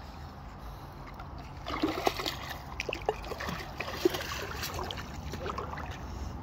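Feet wading through shallow swamp water: irregular splashing and sloshing steps that start a little under two seconds in, with a few sharper splashes.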